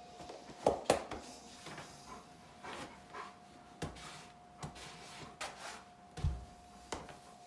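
Handling noises as socks are pulled on: scattered knocks and bumps on a wooden bench with clothing rustling, a Bernese Mountain Dog moving against the person. Two sharp knocks about a second in are the loudest, and a dull low thump comes near the end, over a faint steady tone.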